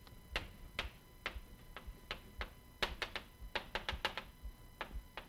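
Chalk tapping and scratching on a blackboard as an equation is written: a quick, irregular run of sharp clicks, about three a second.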